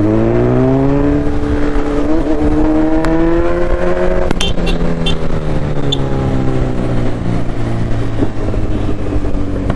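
Kawasaki Z900's inline-four with an Akrapovic exhaust accelerating while ridden, its pitch climbing steadily for about four seconds, then backing off to a lower, steadier run.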